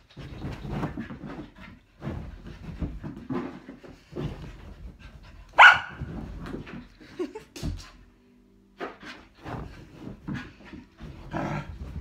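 A Samoyed puppy having zoomies, scrabbling over sofa cushions in a run of short, irregular scuffles with play growls, and one sharp, loud bark about halfway through.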